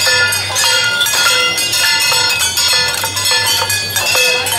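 Procession percussion: gongs and cymbals struck in a steady beat, with bright metallic ringing that carries between strikes.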